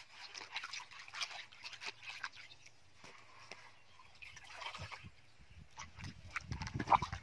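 Water splashing and dripping in a plastic basin as hands swish and lift leafy greens, a run of small irregular splashes and drips. Near the end a louder, lower sloshing begins as a raw chicken is rubbed clean in the water.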